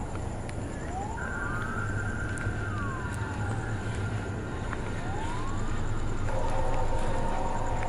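A siren wailing, its pitch rising and falling in slow sweeps over a steady low traffic rumble. About six seconds in, a steady horn sounding several notes at once comes in and holds.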